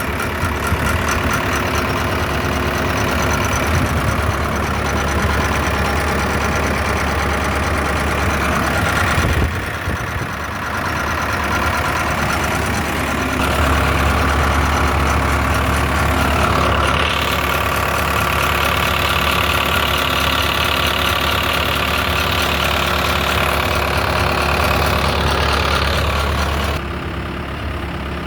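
Case 580 Super M backhoe's four-cylinder diesel engine running steadily. It dips briefly about ten seconds in, then runs louder with a steady higher tone through most of the rest, and drops back down near the end.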